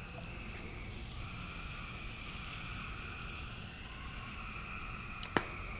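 Quiet room tone with a faint steady hum, and a single sharp click a little over five seconds in.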